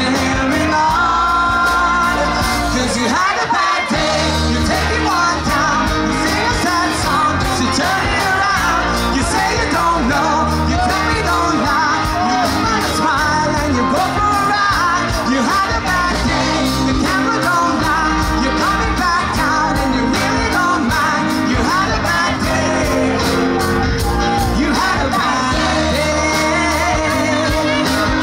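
Live band playing a pop-rock song: vocals into microphones over guitar and a steady beat.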